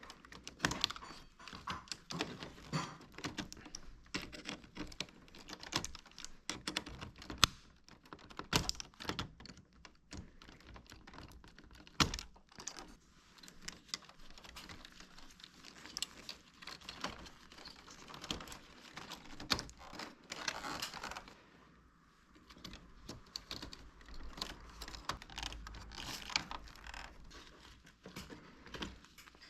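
Irregular clicks, taps and knocks of hard plastic parts being handled and unclipped while a Toshiba wall-mounted air conditioner's indoor unit is taken apart, with a brief hiss about two-thirds of the way through.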